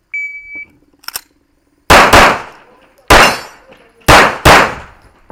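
Shot timer's start beep, then about a second and a half later a pistol fired six times in three quick double-taps, about a second apart.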